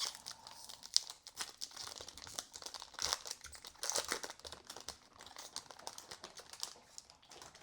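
Foil trading-card pack wrapper being torn open and crinkled by hand: an irregular run of crackles and small rips.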